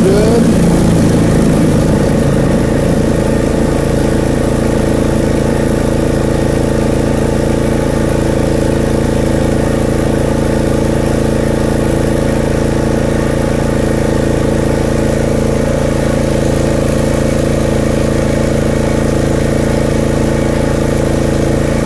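Riding mower's small gasoline engine running steadily. Its pitch shifts over the first couple of seconds, then holds even.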